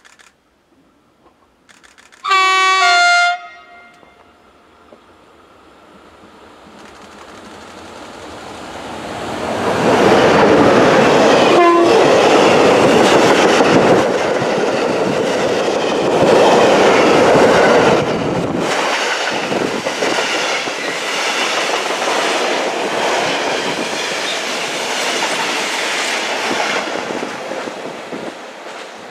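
Belgian Railways Série 13 electric locomotive 1317 sounds a short two-note horn about two seconds in. It then approaches and passes hauling a container freight train, with a rising rumble, the wagon wheels clicking over rail joints as the wagons go by, and the sound fading near the end.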